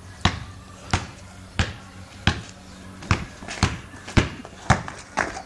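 Basketball dribbled on a paved street, about nine sharp bounces at a steady pace of roughly one every two-thirds of a second.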